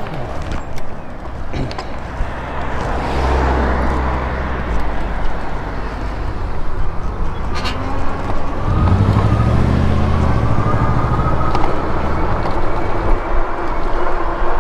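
Road traffic passing close by: cars and pickup trucks drive past over a steady rumble, with two vehicles passing loudest about 3 s and 9 s in.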